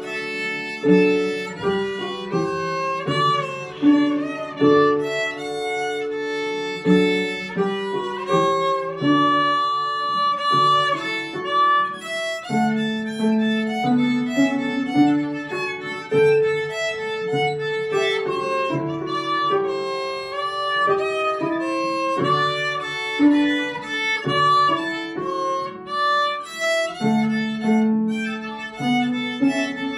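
Solo violin played with the bow, unaccompanied: a melody of held and moving notes, some with vibrato.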